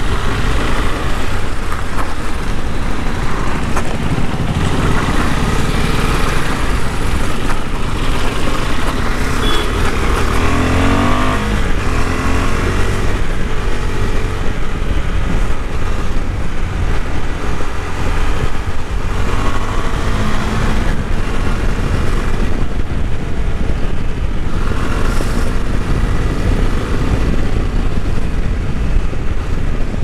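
KTM 390 Adventure's 373 cc single-cylinder engine and exhaust under way, the engine note rising and falling as the throttle changes.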